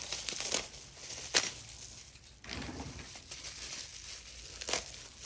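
Plastic zip-lock bag crinkling as it is handled and opened, with a few sharp clicks.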